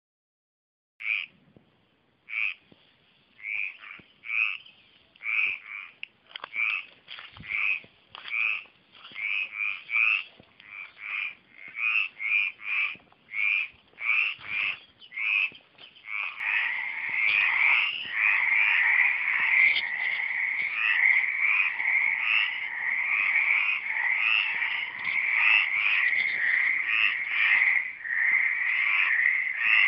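Frogs croaking. Single calls start about a second in, roughly one a second, then about halfway through they thicken into a dense, louder chorus of many frogs calling over one another.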